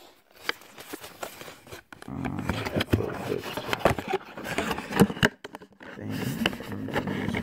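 Phone handling noise: the microphone rubbing and knocking against clothing as the phone is moved about, with many small clicks. It is quieter for the first couple of seconds and gets louder after that.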